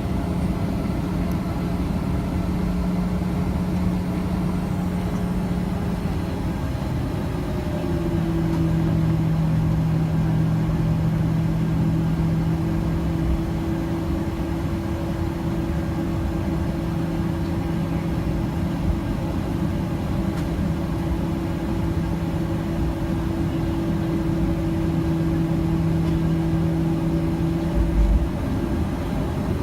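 Jet airliner cabin noise with the engines running: a steady hum and drone whose pitch steps down slightly about seven seconds in, then holds steady.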